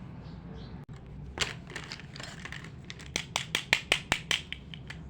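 Small plastic toy pieces being handled up close: a light rustle and a sharp click, then a quick run of about ten sharp clicks in the second half, over a faint low hum.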